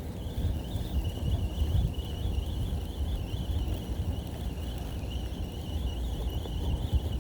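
Shimano 22 Stella 4000XG spinning reel being wound against a vibration lure's pull, giving a low, uneven knocking rumble that the owner takes for an abnormal fault in the reel. Insects trill steadily throughout.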